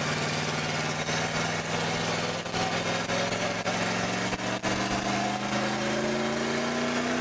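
Ford F-series pickup engine held at high revs for a burnout, its pitch holding steady and then climbing slowly through the second half, over a constant wash of noise.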